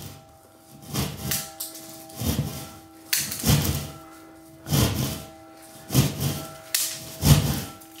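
Bell in the tower overhead, swung by a hand-pulled rope, struck over and over: several bell tones hang on and overlap, heard muffled through the ceiling, with a knock or thud about every second as the rope is pulled.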